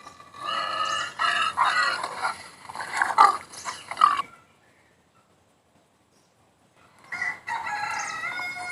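Rooster crowing twice: a first crow with a wavering pitch, then about seven seconds in a long held crow whose pitch drops at the end.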